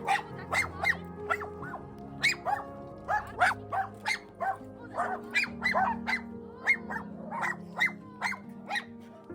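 Dog barking repeatedly in short, sharp barks, about two a second, over background music.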